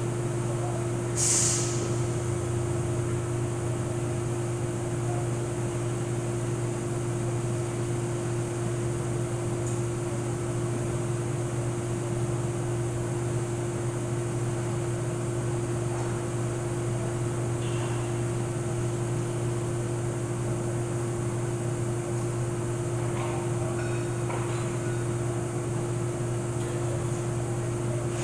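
Steady machine hum with two constant tones. A short, sharp hiss about a second in, and a few faint clicks later on.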